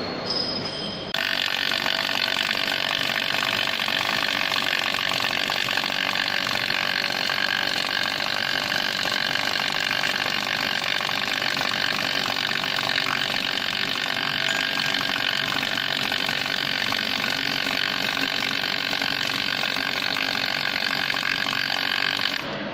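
Automatic MIG welding machine's arc burning steadily on a circumferential seam of a hydraulic cylinder, a continuous even crackling hiss that starts abruptly about a second in and cuts off just before the end.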